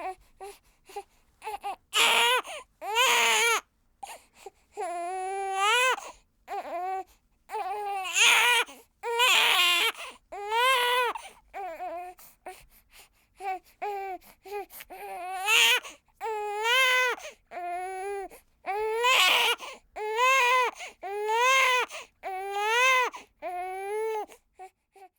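One-week-old newborn baby crying: a string of wails about a second long each, every one rising and falling in pitch, with short gaps for breath and a few brief whimpers between.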